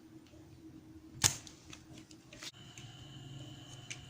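A few sharp clicks from small parts and tools being handled, the loudest about a second in, over a faint steady hum.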